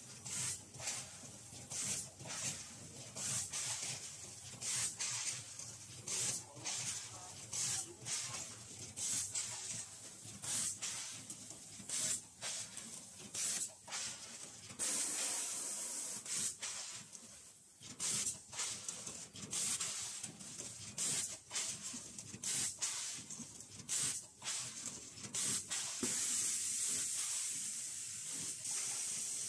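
Vertical form-fill-seal packaging machine running, with short hisses of compressed air or gas released about once or twice a second as it cycles. A longer hiss comes about halfway through and another near the end.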